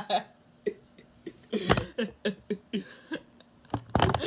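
A person's voice making a run of short, clipped vocal bursts, about four a second, with a louder breathy burst near the end.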